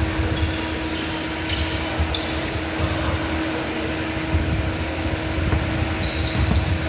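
Steady mechanical hum and low rumble of gym ventilation fans, with a few brief, faint sneaker squeaks on the hardwood court, most of them near the end.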